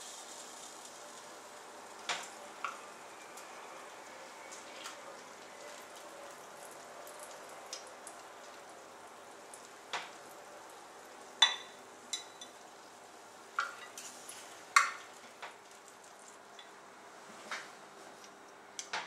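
Freshly roasted pork ribs sizzling faintly in a glass baking dish, with scattered clinks and taps as a utensil lifts them out against the glass and sets them on a plate. The sharpest taps come in the second half.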